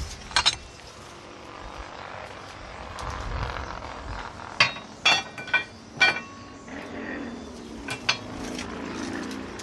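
Small metal parts and tools clinking against each other and on metal: several sharp ringing clinks, with a quick run of four about halfway through and a couple more near the end.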